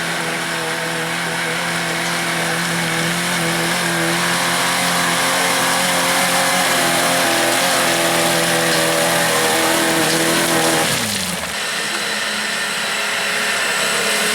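Off-road 4x4 engine held at high revs under load, climbing slightly in pitch; about eleven seconds in the revs drop sharply and the engine carries on at lower revs.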